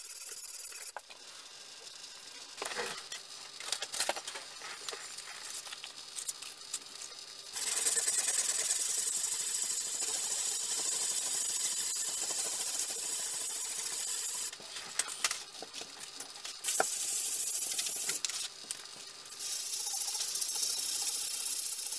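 Hand sanding of a steel axe head with wet abrasive paper: quiet scrapes and small knocks at first, then long stretches of steady scratchy hiss, with quieter gaps where the strokes pause.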